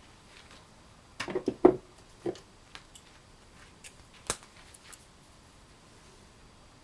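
Swiss Army knife being handled: a quick run of knocks and clicks about a second in, loudest at the end of the run, another knock shortly after, then one sharp click a few seconds in among a few faint ticks.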